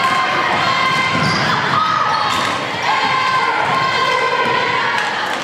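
Basketball dribbled on a hardwood gym floor, repeated thuds, over the noise of a crowd in a large hall with long held tones running through it.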